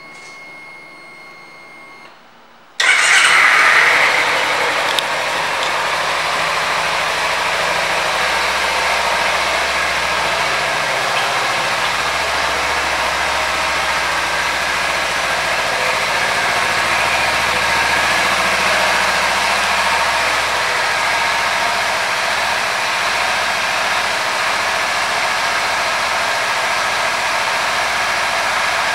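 2013 Kawasaki Ninja 300's parallel-twin engine starting with a sudden burst about three seconds in, then idling steadily.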